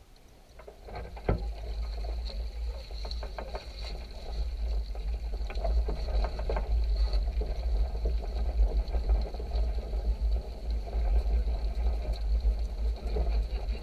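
Boat trolley rolling and rattling up a slipway as a mobility scooter tows the trimaran, with a steady low rumble, many small knocks, and a thin high whine over it. A sharp knock comes about a second in.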